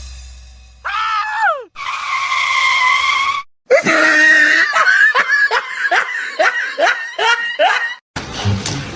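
High-pitched cries from a voice: a long falling cry, a held cry, then a run of short falling cries, about two a second. A low boom fades out at the start.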